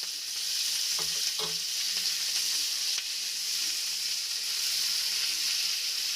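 Steamed, drained bottle gourd greens (lau shak) sizzling steadily in hot mustard oil in a kadai. Two soft knocks come about a second in.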